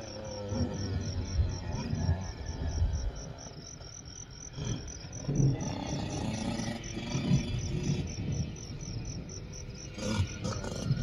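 Insect chirping in an even, high-pitched rhythm about four times a second, over the low, uneven sound of a distant dirt bike engine that swells and fades as it climbs the track.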